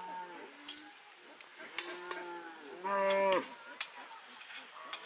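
Cattle mooing, several drawn-out moos in a row, the loudest and fullest about three seconds in.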